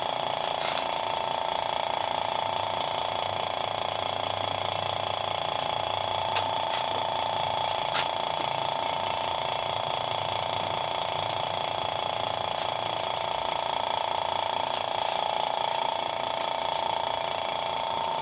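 Electric vacuum pump running steadily with a constant whine, evacuating a car's A/C system through the manifold gauge hoses. A few sharp clicks, the loudest about six and eight seconds in.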